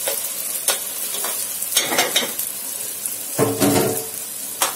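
Chopped onions sizzling in hot oil in a cooking pot, stirred with a spoon that knocks and scrapes against the pot several times.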